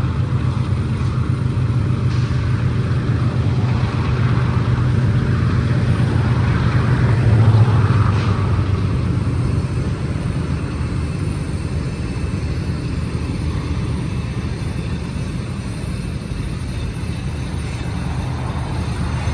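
Diesel locomotives of a BNSF stack train rumbling as the train rolls slowly to a stop to tie down. The rumble builds to its loudest about eight seconds in, then eases and holds steady.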